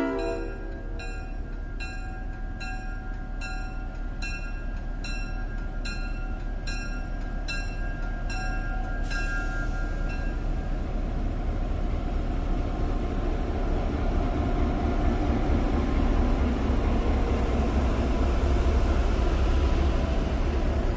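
Railroad warning bell ringing a little over once a second for about the first nine seconds, under the low rumble of an approaching train that grows steadily louder.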